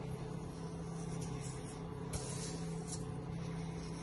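Steady low machine hum, with a few faint brief hisses of a salt-and-sugar cure mix being sprinkled by hand onto a raw salmon fillet.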